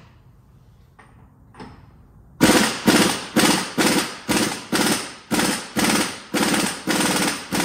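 Impact wrench (rattle gun) hammering on a stuck engine fastener in short, evenly repeated bursts, about two a second, starting a little over two seconds in. A faint knock or two comes before.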